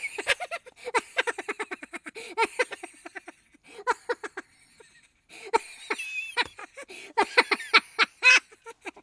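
Cunning, high-pitched laughter: rapid runs of 'ha-ha-ha' broken by two short pauses.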